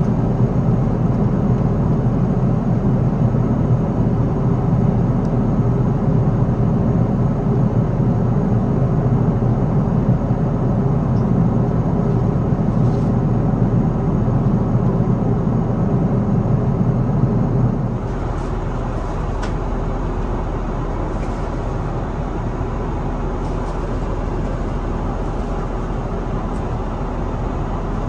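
Steady cabin noise of an Airbus A330-900neo airliner in flight: a deep rumble of engine and airflow noise. About two-thirds of the way through it drops to a somewhat quieter, lighter hum.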